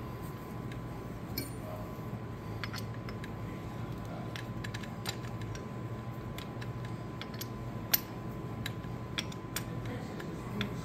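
Small metal clicks and taps as a mandrel is fitted into the chuck of a magnetic drill press, with one sharper click about eight seconds in, over a steady low hum.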